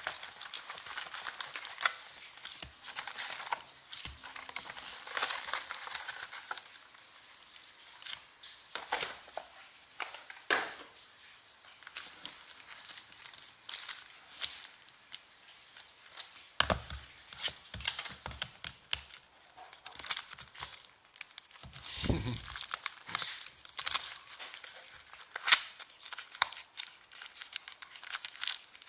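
Plastic wrapping of trading card boxes and packs being torn and crinkled by hand, with many small clicks of handling and two dull thumps past the middle.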